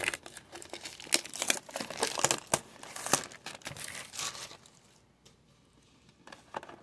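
Crinkling, crackling packaging as a cardboard Topps Chrome Star Wars trading-card value box is handled and unwrapped. It is a busy run of sharp crackles and rustles that stops about two-thirds of the way in.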